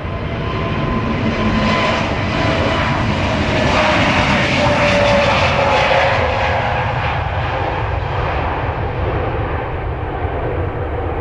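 Airbus A321 airliner's turbofan engines as the jet passes by, growing louder to a peak about halfway through and then easing off, with a tone that slides down in pitch as it goes past.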